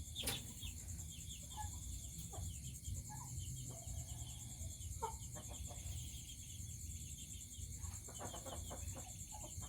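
Chickens clucking softly now and then over a steady high-pitched trilling background, with a sharp click just after the start.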